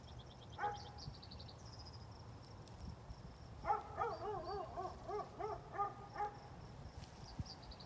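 Quiet outdoor ambience with animal calls: a single short call about half a second in, then a run of about seven wavering calls in the middle, over faint high chirping and a low rumble.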